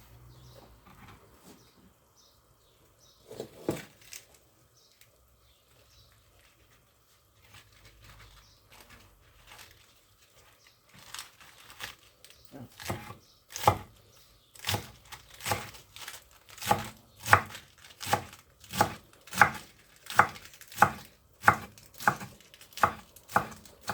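Kitchen knife slicing through salad leaves in a steady run of cuts, about two a second, starting about eleven seconds in and growing louder. A single knock comes earlier, near four seconds.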